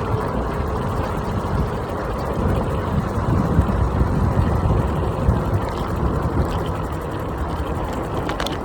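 Wind noise buffeting the microphone, with tyre and road noise from an iENYRID M4 Pro S+ electric scooter riding along. A short click near the end.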